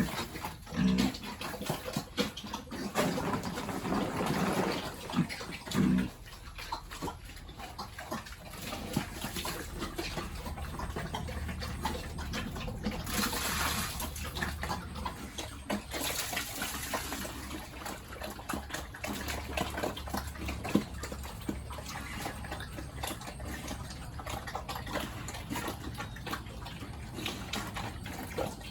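Running, splashing water, with louder gushes about halfway through. Animal noises come in the first few seconds.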